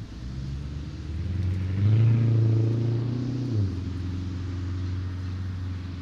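A road vehicle's engine running, growing louder for a couple of seconds and dropping back abruptly about three and a half seconds in.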